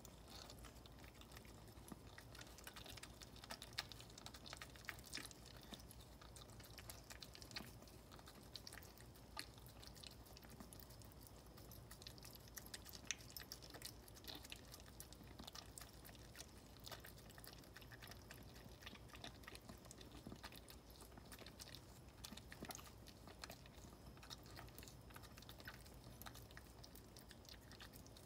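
Faint, irregular wet licking and mouth clicks from a Maltese mother dog cleaning her newborn puppies, over a low steady hum.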